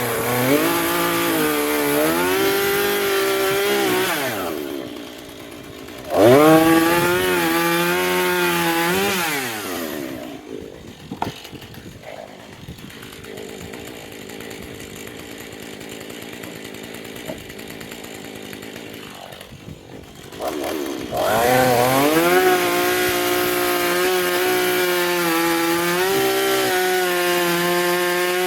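Gas chainsaw revved up to full throttle three times, the engine note climbing and then holding high as it cuts through wood. Between the cuts it drops back to a low idle, once for about ten seconds.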